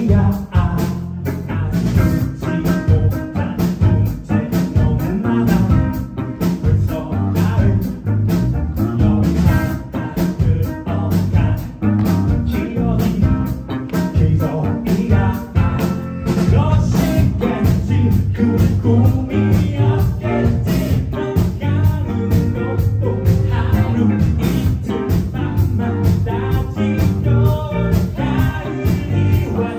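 Live band music: a steady drum beat under bass and other instruments.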